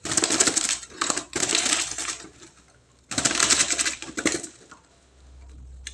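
A perkutut (zebra dove) fluttering its wings in several rapid bursts of up to a second or so each, as it is handled for hand-feeding.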